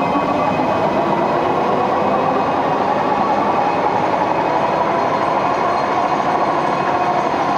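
Kataoka film slitter-rewinder running up to its top line speed of about 300 m/min: a steady, dense mechanical din of the rollers, shafts and moving film web.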